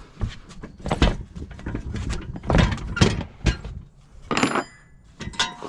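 Irregular knocks and clunks of a dirt bike wheel and its just-removed tire being handled, with one short metallic ring about four and a half seconds in.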